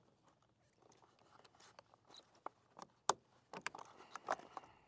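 Fishing pliers and tools clicking and knocking as they are slid into a tool holder on the kayak: a handful of short, sharp knocks, the loudest about three seconds in.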